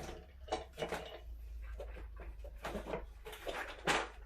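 Small scattered clicks and taps of tools and parts being handled during soldering work, with a sharper click near the end, over a low steady hum.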